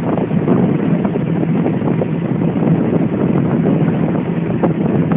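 Motorboat engine running steadily at towing speed, with wind buffeting the microphone and the rush of the churning wake.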